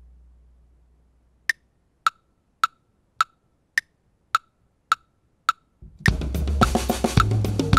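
A metronome click at 105 BPM counts in eight beats, the first one higher-pitched. About six seconds in, the drum kit comes in with bass drum, snare and cymbals. Before the click starts, the last of the previous playing rings away to near silence.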